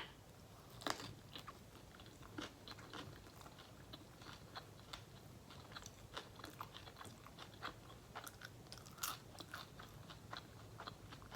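Close-miked chewing and biting of food: a string of faint, irregular short crunches and clicks from the mouth, a few slightly louder crunches among them.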